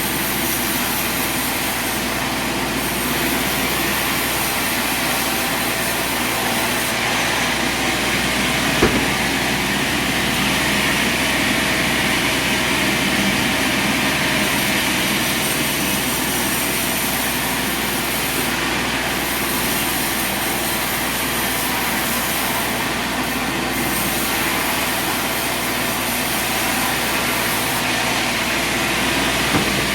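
A sawmill running steadily. A single sharp knock comes about nine seconds in.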